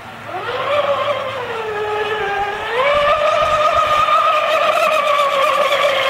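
Radio-controlled speedboat's motor whining at high revs across the water. The pitch climbs at the start, sags, then jumps up near three seconds and holds high and steady.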